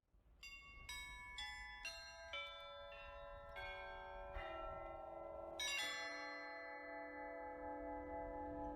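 Russian Orthodox church bells struck one at a time in a falling run, about two strikes a second, each bell lower in pitch than the last and all left ringing together. Near six seconds in a larger, lower bell is struck, the loudest note, and rings on.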